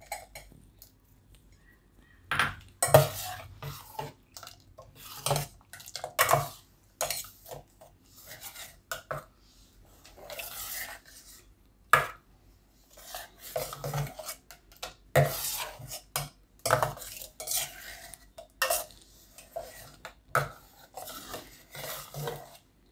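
A steel spoon stirring in a stainless steel bowl of bael fruit juice, clinking and scraping against the sides again and again as jaggery is dissolved into it. The stirring starts about two seconds in.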